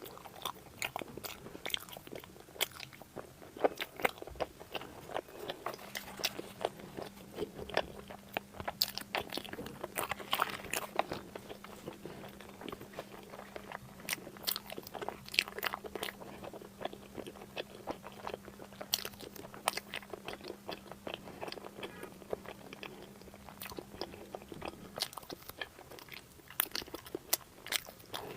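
Close-miked eating: a person biting and chewing crunchy food, a dense, irregular run of sharp crunches and wet mouth clicks. A faint steady low hum sits under it through the middle and stops a few seconds before the end.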